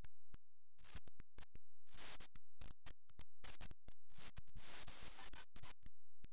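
Sharp clicks mixed with scratchy scraping strokes, each under a second long, from hand-drawing on a computer as a picture is built up line by line.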